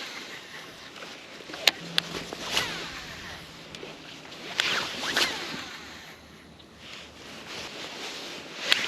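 Fishing rod and reel being handled during a cast and retrieve: sharp clicks about two seconds in and again near the end, and swishes in the middle and at the end.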